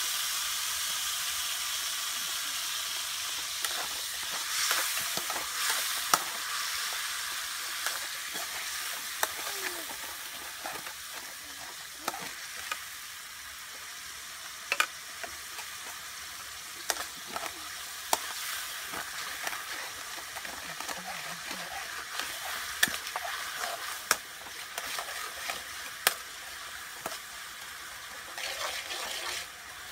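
Food frying in a stainless steel pan on a portable gas stove: a steady sizzle that eases off a little over the first half, with a metal spatula clicking against the pan now and then.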